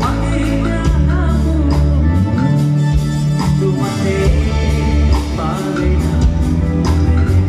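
Live band playing loudly: a male vocalist singing over electric bass guitar, keyboards and a drum kit, with regular drum and cymbal hits.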